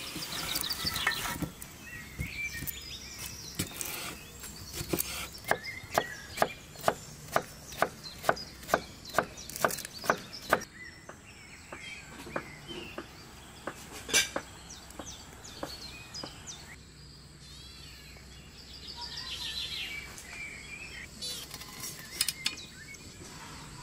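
Kitchen knife chopping cucumber on a wooden cutting board: a run of even, sharp chops, about three a second for some five seconds, with birds chirping throughout.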